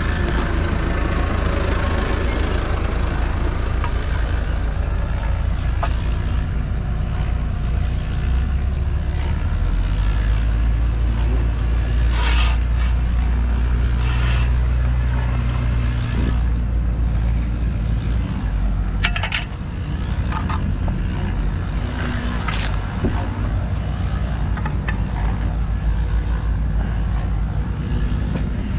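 A vehicle or machine engine running with a steady low rumble, with a few short clicks and scrapes over it.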